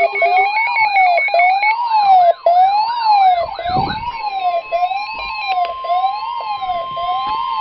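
Several electronic sirens sounding together: one rises and falls in pitch about once every second and a quarter, while a faster warbling siren and a two-note siren drop out in the first few seconds. From about four seconds in, a steady alert tone holds under the rising and falling siren; this is the NOAA Weather Radio 1050 Hz warning tone.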